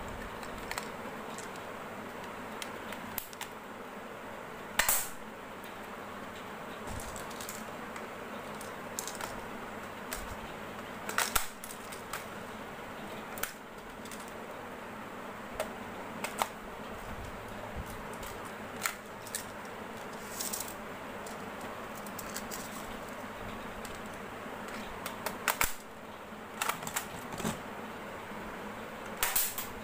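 Scattered plastic clicks and clacks of toy spring airsoft and dart guns being handled and worked, with a few louder, sharper snaps spread through.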